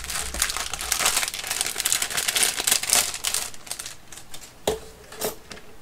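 Clear plastic bag crinkling as hands open it and take out what is inside. The crinkling eases off after about four seconds, followed by two soft knocks.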